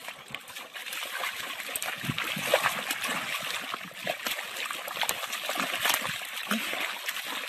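A dog rolling and wriggling in a muddy puddle: wet mud and water splashing and squelching in irregular bursts, louder from about a second in.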